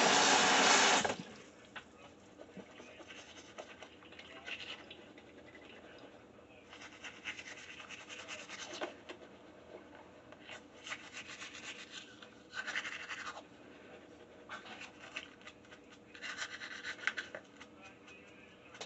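Manual toothbrush scrubbing teeth, the bristles rasping in bursts of about a second with short pauses between. It opens with a loud rushing noise lasting about a second and a half.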